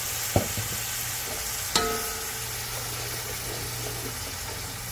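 Curry masala and seasonings sizzling in hot oil in a pot as they are stirred. A spoon knocks against the pot twice, about half a second and just under two seconds in; the second knock rings briefly.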